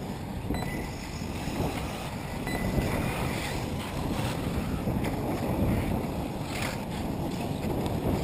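Wind rumbling on the microphone, with faint, brief whines from electric 1/8-scale RC buggies racing on the dirt track.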